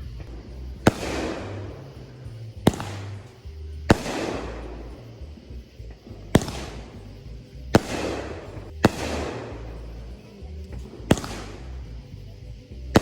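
Consumer fireworks going off: seven sharp bangs at irregular gaps of about one to two and a half seconds, each trailing off in a fading rush of noise.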